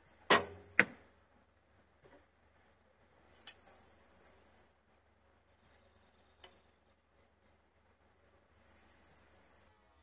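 Recurve bow strung with a BCY X99 string shot once: a sharp crack of the string's release about a third of a second in, then a second sharp crack half a second later as the arrow strikes the backstop. Faint high chirping comes and goes afterwards.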